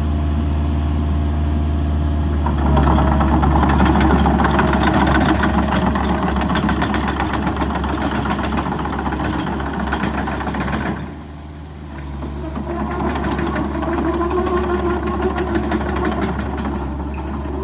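Kubota RX-505 mini excavator's diesel engine running steadily, then coming up to a louder, fuller note about two seconds in, as when revved to work the hydraulics. The sound drops back briefly about eleven seconds in, then picks up again with a higher whine riding on the engine.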